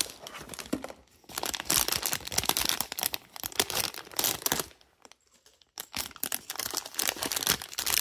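Foil blind-box pouch being torn open and crinkled by hand: dense, crackly rustling, with a pause of about a second near the middle.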